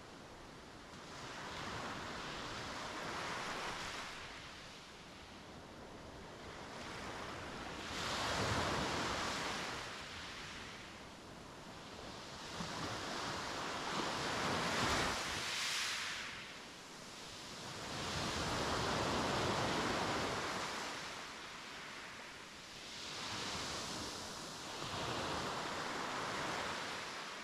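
Sea waves breaking and washing up on a beach, in swells that rise and fall about every five seconds.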